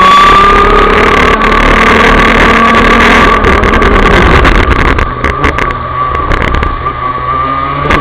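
Rotax DD2 125cc two-stroke single-cylinder kart engine running at high revs under racing load, heard from onboard with a steady high-pitched tone. The sound eases for a few seconds past the middle, then picks up again near the end.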